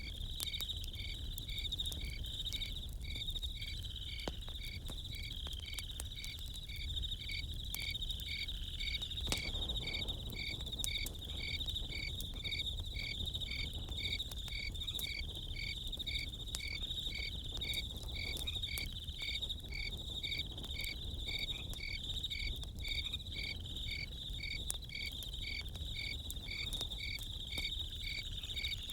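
Crickets chirping in a steady, even rhythm over a continuous high insect trill, with occasional faint pops and crackles from a campfire.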